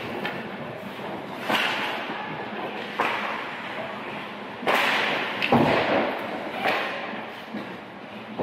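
Ice hockey play in an echoing rink: several sharp cracks and thuds of sticks, puck and boards a second or two apart, over a steady rink din.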